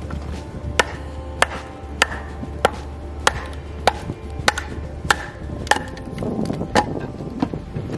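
Wooden baton striking the spine of a TOPS Steel Eagle 111A tanto knife, batoning the blade down through seasoned wood: about a dozen sharp knocks, evenly spaced a little over half a second apart.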